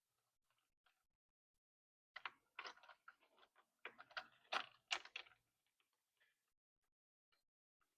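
Light clicks and taps of small parts being handled while working on a chainsaw's fuel lines and carburetor, in a cluster lasting about three seconds, with a few faint ticks before and after.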